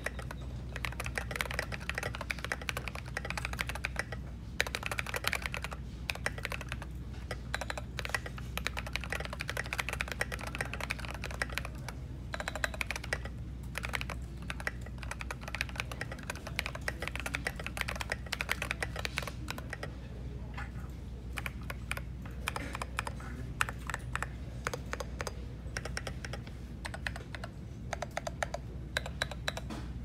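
Continuous typing on a Canoe mechanical keyboard with Holy Panda tactile switches and SA keycaps on its stock plate: a rapid, uneven clatter of keystrokes. A steady low hum runs underneath.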